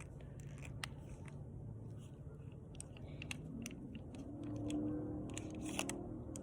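Handling noise: scattered light clicks and rustles over a low steady hum.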